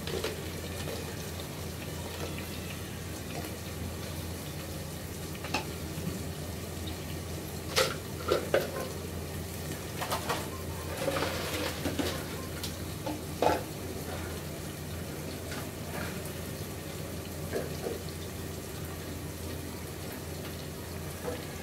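Sliced onions frying in oil in an aluminium pressure cooker on a gas burner: a steady sizzle over a low hum, with scattered sharp crackles and clicks, most of them in the middle. The onions are at the softening stage.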